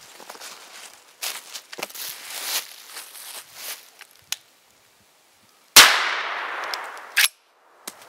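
A single shot from a Remington 870 .410 pump-action shotgun about six seconds in, very loud, with its echo trailing off for about a second and a half before cutting off abruptly. Faint rustling comes before the shot.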